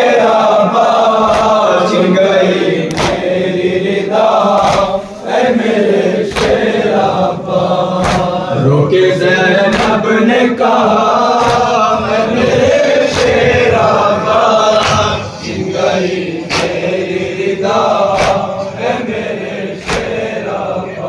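A group of men chanting a Muharram noha together in a slow lament, punctuated by sharp hand slaps of chest-beating (matam) in time with the chant, about once every one to two seconds.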